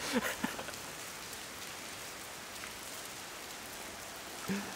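Steady rain falling on a wet concrete floor, an even hiss.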